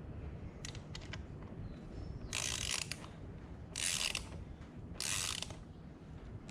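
Socket wrench ratcheting in three short bursts, with a few single clicks before, as the air cleaner's mounting bolts are snugged down.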